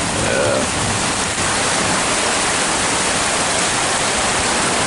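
A heavy downpour of rain and hail, a dense, steady hiss of falling water.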